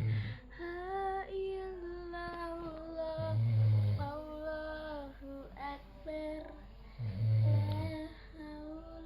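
A child singing a slow, lullaby-like tune in long held notes, over a man's deep snores that come three times, about every three and a half seconds; the snores are the loudest sounds.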